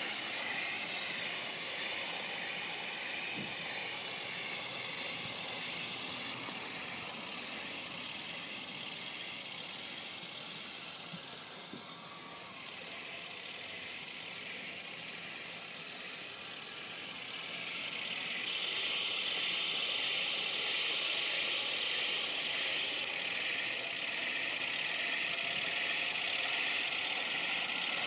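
Radio-controlled full-metal Tiger tank driving across grass: a steady mechanical whine and hiss from its drive motors, gearboxes and metal tracks. It grows louder about two-thirds of the way through.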